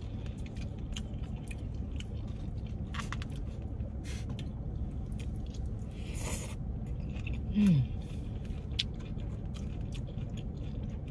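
A person chewing food close to the microphone, with small wet clicks, over a steady low hum. There is a brief burst of noise about six seconds in and a short hummed "mm" of enjoyment about a second later.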